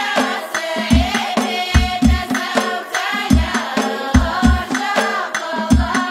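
Amazigh ahwash music: a men's choir singing together over deep frame-drum strokes in a repeating pattern.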